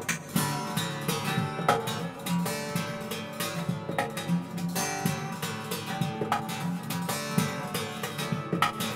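Two acoustic guitars played live in a driving, percussive style: plucked notes and strummed chords with frequent sharp attacks.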